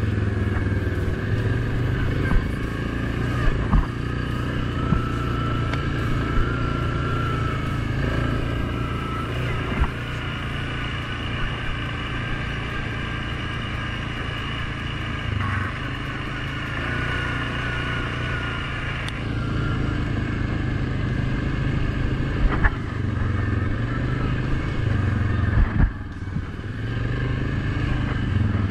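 Suzuki King Quad 750 ATV's single-cylinder engine running steadily as the quad rides over a dirt trail. A wavering high whine sits over the engine for much of the time, and a few sharp knocks and rattles come from bumps.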